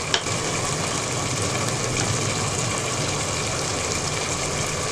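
Steady stovetop cooking noise: basmati rice boiling hard in a pot of water and masala gravy cooking on the stove, over a low steady hum.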